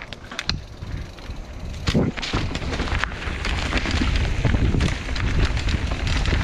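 Full-suspension mountain bike (Specialized Enduro) rolling down rocky trail: a few sharp clicks, then a heavy knock about two seconds in as it comes off a rock slab, followed by constant clatter and rattle of tyres, chain and frame over rough, rocky ground.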